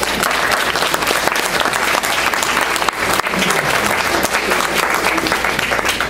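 Audience applauding: dense clapping of many hands, steady throughout.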